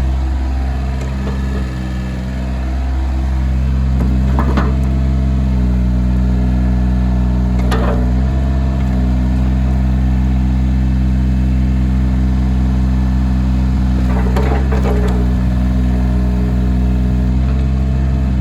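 Diesel engine of a 2006 Case CX36B mini excavator running steadily, its note shifting slightly a few times, with short metallic knocks about four, eight and fourteen seconds in.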